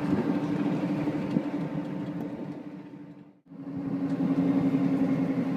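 A vehicle's steady running drone with a constant low hum. It drops out abruptly about three and a half seconds in, then resumes.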